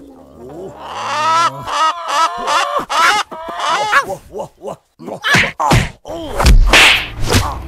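Movie fight sound effects: a quick string of punch and kick impacts and swishes, with pitched cries between them; the heaviest, deepest hit lands about six and a half seconds in.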